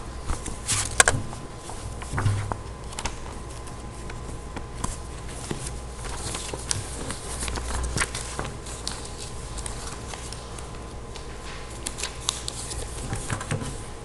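Sheets of paper being handled and flipped, with irregular rustling and scraping as pages slide over one another on a desk.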